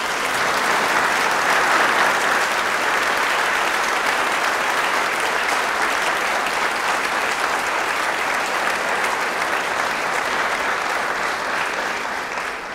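Audience applauding, a steady mass of clapping that fades out near the end.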